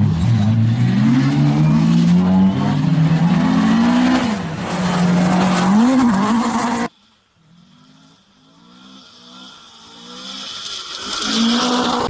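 Mk2 Ford Escort rally car's engine revving hard through the gears, its pitch climbing and dropping with each shift. About seven seconds in the sound cuts off suddenly to a faint distant rally car engine that grows steadily louder as it approaches.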